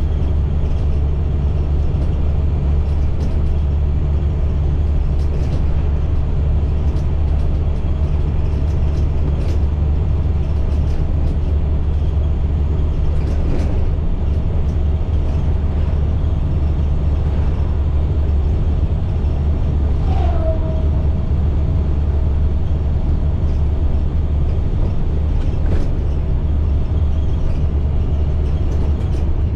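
A 2010 IC CE300 school bus's MaxxForce DT diesel engine running at a steady pace while the bus drives, heard from inside as a loud, even low drone with road noise. There is a faint steady whine above it and a few scattered knocks and rattles.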